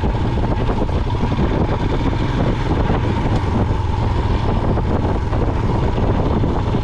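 Royal Enfield Himalayan's single-cylinder engine running steadily as the motorcycle is ridden, with a constant noisy rush over it.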